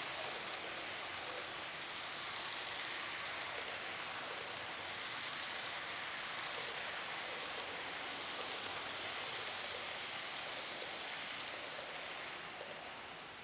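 HO-scale model freight cars rolling past close by on the layout's track, their wheels on the rails making a steady rushing noise that eases a little near the end.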